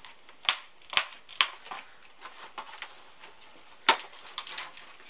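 Plastic packaging snapping and crackling as small star ornaments are pried out of their tray: three sharp clicks about half a second apart, a louder snap near four seconds, and lighter plastic crackles between.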